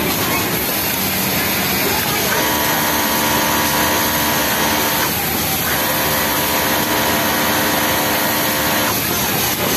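Industrial flatlock sewing machine running at high speed while stitching a T-shirt's bottom hem: a steady whine in two runs of about three seconds each, with a short stop between them, over constant background noise.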